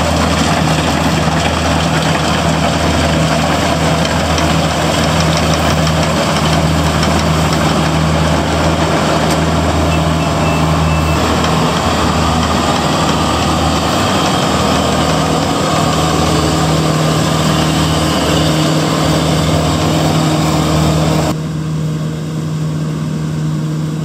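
Kubota rice combine harvester running: a steady diesel engine drone under the dense mechanical noise of its threshing and grain-handling machinery. About 21 seconds in the upper mechanical noise drops away, leaving a lower, steadier engine hum.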